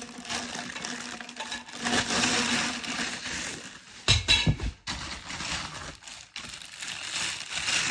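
Plastic wrapping crinkling and rustling as metal light-stand poles are handled and unpacked from a cardboard box, with a short cluster of louder knocks about four seconds in.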